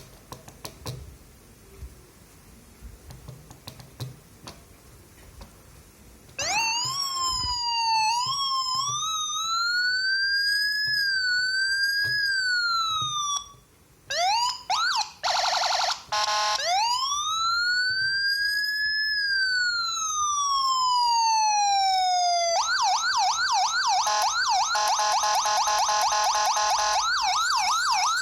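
Electronic police siren switched on about six seconds in after a few faint clicks, its pitch rising and falling unevenly. It cuts off, gives a few short bursts including a buzzing horn tone, then one long slow rise and fall, and changes to a fast warble for the last few seconds.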